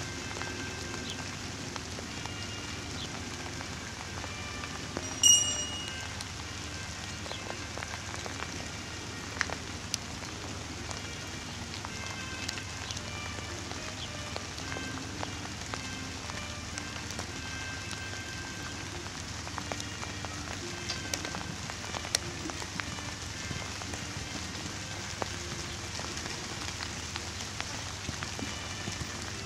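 Steady patter of light rain, with faint music underneath. About five seconds in there is a brief high tone, the loudest sound.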